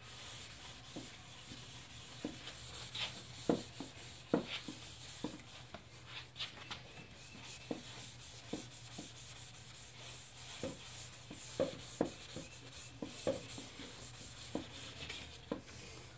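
A gray Scotch-Brite scuff pad rubbing back and forth over a primed plastic bumper cover, a soft steady scrubbing broken by scattered light knocks and clicks. The primer is being scuffed so the base coat will adhere.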